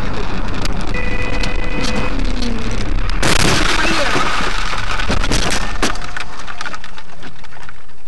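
Car driving on a wet, slushy road, heard from a dashcam inside: steady tyre and road noise with scattered rattling clicks, and a louder rushing burst a little over three seconds in.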